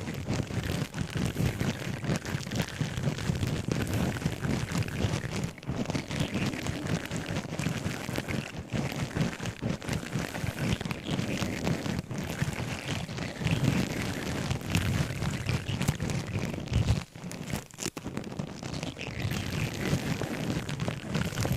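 Objects handled close to the microphone: continuous rustling and crackling full of small clicks and taps, with a few brief pauses.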